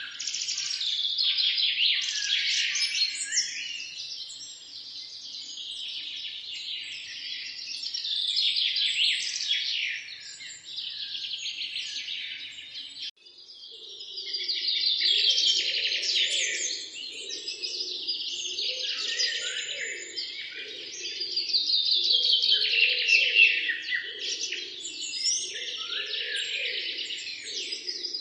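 A dense chorus of many small birds chirping and singing over one another. After a brief drop about halfway through, a lower repeated pulsing sound joins underneath the chirping.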